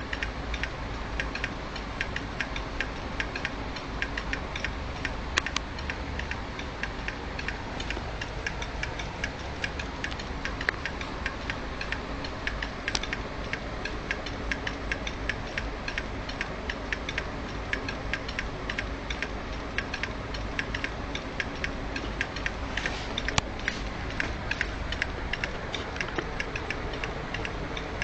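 Failing Maxtor 160 GB hard disk clicking over and over at an even rate, roughly two or three sharp clicks a second, over a steady low hum. It is the repetitive 'click of death' of a bad drive, typical of the head actuator failing to read and resetting again and again.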